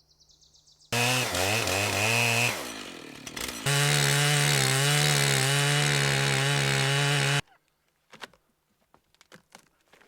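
Two-stroke chainsaw revving up and down, then running steadily at full throttle for about three and a half seconds before cutting off abruptly.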